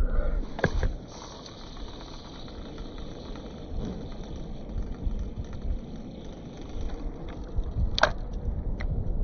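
Steady low rumbling noise with a few sharp clicks. The loudest click comes about eight seconds in, as a spinning reel on a fishing rod is handled.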